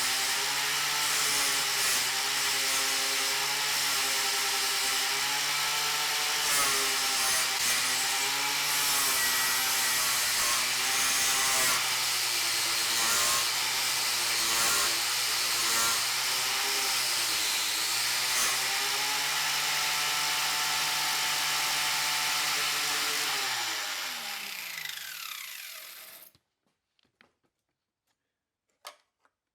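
Angle grinder running, its motor pitch dipping again and again as it is pressed into the work. Near the end it is switched off and winds down over a couple of seconds, followed by a couple of faint clicks.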